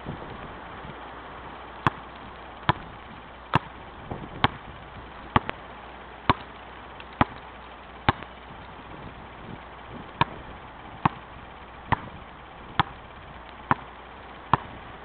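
A basketball dribbled on paved ground, sharp bounces about once a second, starting about two seconds in with a brief pause near the middle, over a steady background hiss.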